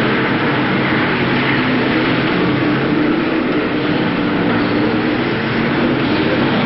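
A pack of BriSCA F1 stock cars racing, their engines running loud and steady, several engine notes overlapping.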